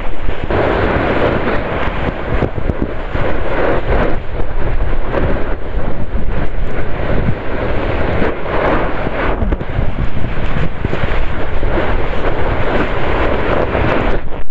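Snowboard sliding and carving over snow, its base and edges giving a loud, uneven scraping hiss, with wind buffeting the microphone.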